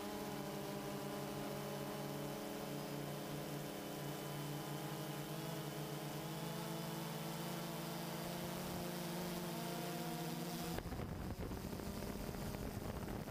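DJI Phantom 2 quadcopter's motors and propellers humming steadily as it flies, heard from a camera on board, with the pitch drifting only slightly. About eleven seconds in, a low rumble of wind on the microphone rises over the hum.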